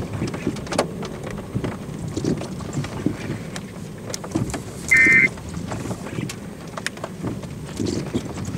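Uneven rumble of wind on the microphone with scattered ticks and knocks. About five seconds in, a short, high electronic beep sounds once, louder than the rest.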